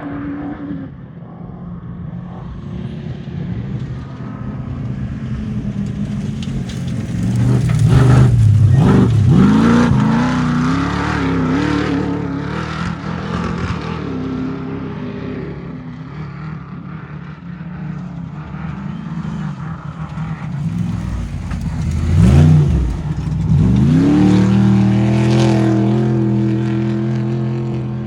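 Off-road race truck engines revving hard as they come past, twice: about eight seconds in and again about twenty-two seconds in. Each time the engine note dips and climbs back up, then holds loud and high. Between the passes engine noise goes on at a lower level.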